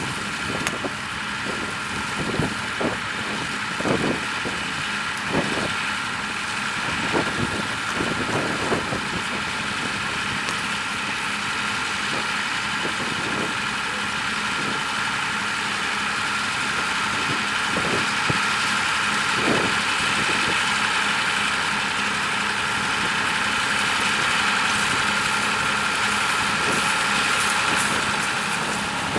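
Tractor engine running steadily, with a high steady whine above it. Irregular knocks sound through the first ten seconds or so, then the engine runs on evenly and a little louder.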